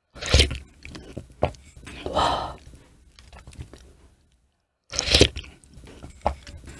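Close-miked mouth sounds of sipping hot broth from a wooden spoon: a sip and a longer slurp, lip smacks and small wet clicks, then after a brief silence another sip about five seconds in.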